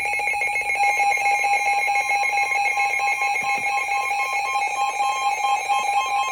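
Emergency Alert System two-tone attention signal, a loud, steady alarm tone with a fast flutter, sounding before a severe thunderstorm warning is read.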